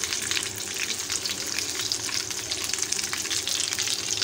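Oil sizzling and crackling steadily in a frying pan of chicken kabab patties, during the smoking step with a hot piece of coal in a steel bowl set among them.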